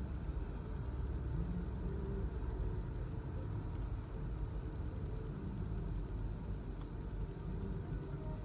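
Steady low background rumble with no clear events, even in level throughout.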